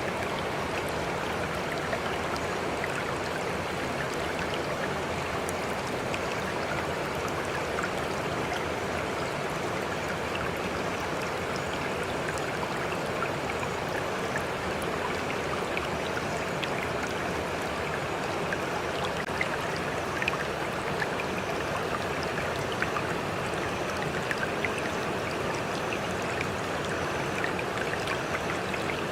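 Water flowing steadily, an even rushing sound with small splashes and drips scattered through it.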